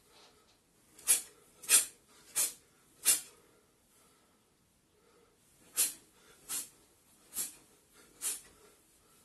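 Short, sharp forceful exhalations, one with each karate punch: a run of four about two-thirds of a second apart, a pause, then four more.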